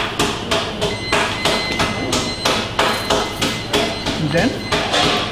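Steady rhythmic knocking, about three sharp knocks a second, at an even pace throughout. A faint high steady tone sounds for a few seconds in the middle.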